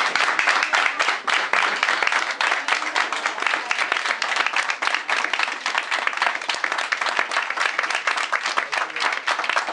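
A roomful of people applauding, with many hands clapping densely and evenly.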